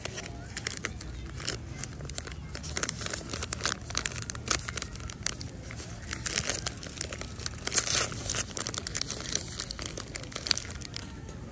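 Crinkly food wrapper being handled and torn open by hand: a dense, irregular run of crackles.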